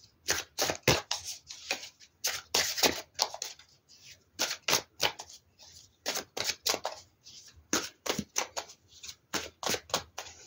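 A deck of oracle cards being shuffled and handled: a run of quick, irregular card flicks and slaps in short clusters.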